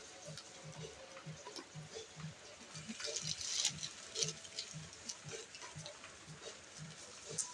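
Packaging being handled and torn open, a crackly rustle with scattered clicks that is densest about three seconds in, over a faint low pulse repeating a few times a second.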